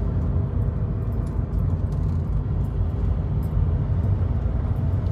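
Inside the cab of a 2011 Volkswagen Caddy van on the move: a steady low rumble of engine and road noise.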